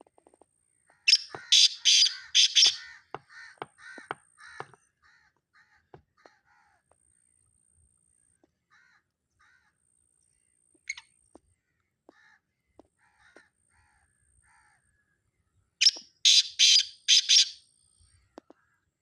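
Francolin (teetar) calling: a loud, harsh phrase of four or five notes about a second in, softer repeated notes after it, and the same loud phrase again near the end.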